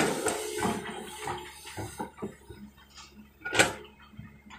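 Soil and stones tumbling from an L&T-Komatsu excavator's bucket into a steel tipper-truck bed: a loud crash at the start, then scattered clattering as the load settles. A sharp metallic clank comes about three and a half seconds in as the bucket comes down onto the soil pile.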